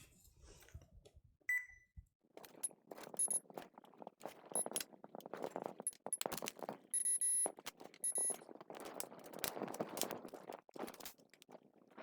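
Multimeter in continuity mode giving short beeps as its probes touch points on a PC motherboard, checking for a short circuit. The beeps come once early and several times around the middle, among scratchy clicks of the probe tips on the board.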